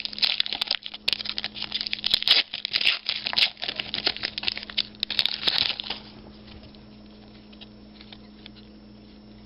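Foil trading-card pack being torn open and crinkled, a dense run of crackling for about six seconds, then only faint handling.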